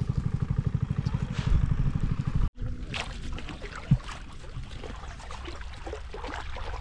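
A small engine running with a fast, even low beat, which cuts off abruptly about two and a half seconds in. Water then splashes and trickles, with one sharp thump about four seconds in.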